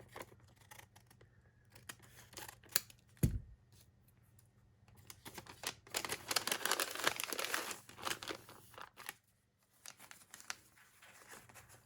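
Scissors snipping the top off a plastic sticker packet, then the cellophane crinkling and crackling as the packet is opened and handled, loudest for a few seconds past the middle. A single dull thump about three seconds in.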